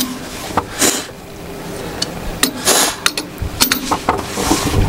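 Metal hand tools clinking: combination wrenches and sockets handled on a tool tray, a series of separate sharp clinks with a few short rustles between them.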